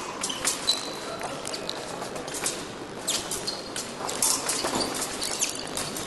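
Épée fencers' footwork tapping and scuffing on the piste, with short metallic clinks of the épée blades touching, a couple of them ringing briefly.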